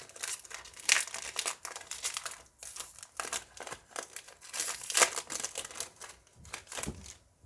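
Foil trading-card booster pack wrapper crinkling as it is handled and torn open, in quick irregular crackles that stop near the end.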